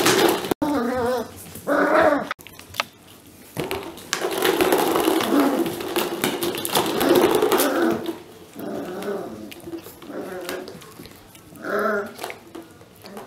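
Soft Coated Wheaten Terrier puppy growling in play, with a few short pitched yips near the start and again near the end. Plastic play balls knock and clatter against a plastic saucer sled.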